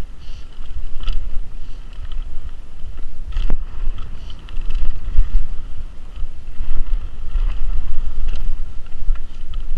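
Mountain bike riding fast down a dirt forest trail: wind buffeting the camera microphone over the rumble of the tyres and the rattle of the bike. There is one sharp knock about three and a half seconds in.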